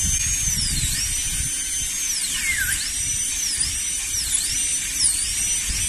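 High-speed dental handpiece with a number 4 round bur whining at a high pitch, the pitch dropping again and again as the bur bites into the enamel of a maxillary first molar. It drops deepest about two and a half seconds in. This is initial penetration for an access cavity at the centre of the biting surface.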